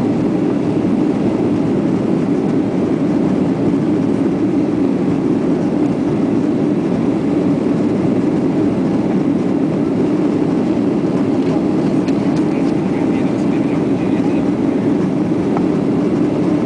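Steady jet roar heard in the cabin of a Boeing 737 climbing out just after takeoff: the engines running at climb power along with the rush of air past the fuselage, low and even with no change in pitch.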